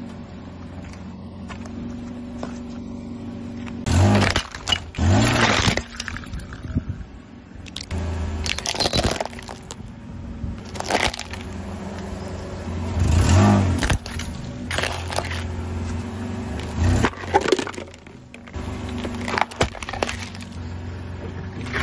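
Hard plastic toys cracking and crunching under a slowly rolling car tyre: a series of loud breaking cracks, a few seconds apart, over a steady background.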